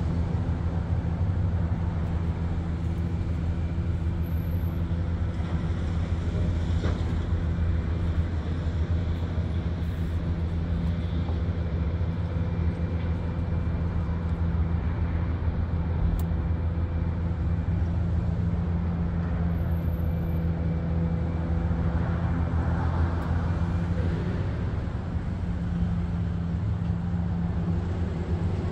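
A steady low mechanical drone, holding one pitch throughout, with a few faint clicks over it.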